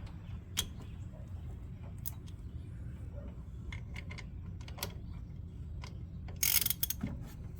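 Scattered metallic clicks and clinks of hand tools working on the engine bay, with a short rattling burst near the end, over a steady low rumble.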